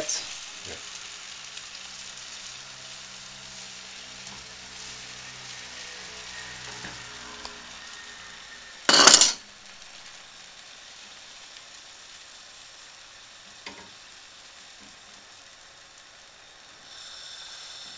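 Omelet egg mixture sizzling steadily in a frying pan over a gas flame. A brief loud burst of noise cuts in about nine seconds in.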